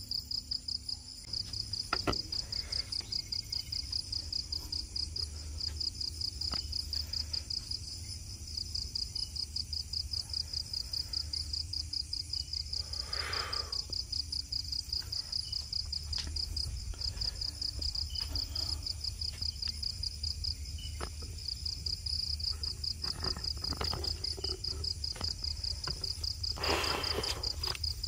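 Night insects chirping steadily, a high pulsing chirp about three or four times a second. A few faint clicks and two brief rustles, one midway and one near the end, sound over it.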